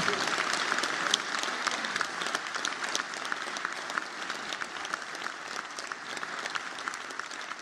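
Audience applauding, a dense patter of many hands clapping that slowly dies down.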